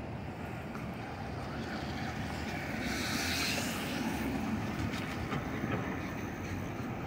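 Steady rumble of city street traffic on a busy avenue, with a hiss swelling up briefly about three seconds in.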